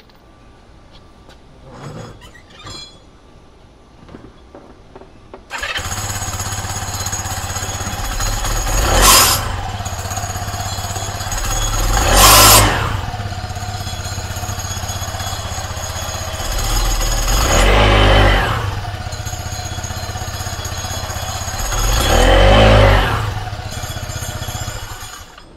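FT6 scooter's engine fitted with a REVENO aftermarket clutch, started about five seconds in, idling and revved four times in short blips, then shut off near the end: a test run of the clutch after its sticking contact surfaces were ground smooth.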